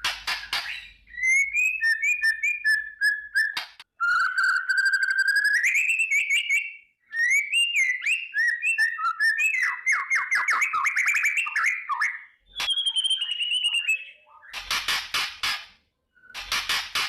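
White-rumped shama (murai batu) singing: clear whistled phrases, a long rising whistle and fast rattling runs. Near the start, and twice near the end, the song is broken by harsh crackling 'kretek' calls.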